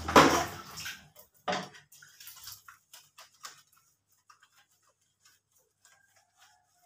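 Hands rubbing a small puppy's soaking-wet coat on a tiled floor: short, scattered wet rubbing sounds that thin out to near silence after about four seconds. A loud, unidentified burst of sound comes in the first second.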